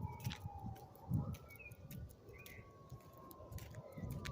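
Faint outdoor ambience of birds chirping now and then over a distant siren slowly wailing up and down, with light clicks and the thump of footsteps on the walk.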